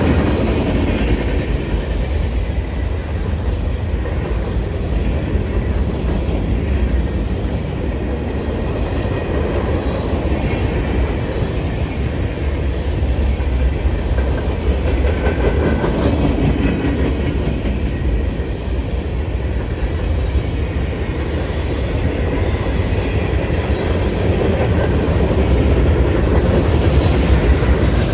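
Freight cars of a CSX trash train rolling past at steady speed, the wheels clattering over the rail joints in a continuous loud rumble.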